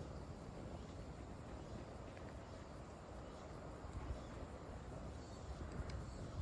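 Faint outdoor ambience: insects chirring in a steady, evenly pulsing high tone over a low rumble.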